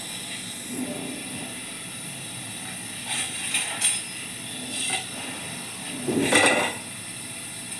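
A few clinks and knocks of kitchen utensils over a steady hiss as a pot of water and herbs is set on the stove to boil; the loudest knock comes a little past six seconds in.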